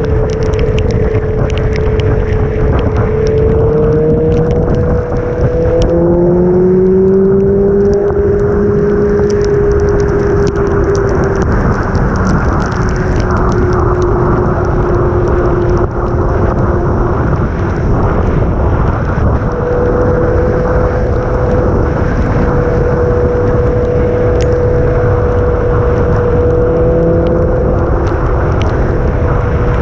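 Motorcycle engine running at road speed under heavy wind rush on the helmet-mounted microphone, with tyre hiss from the wet road. The engine note climbs and then drops sharply about six seconds in at a gear change, and rises again later in the ride.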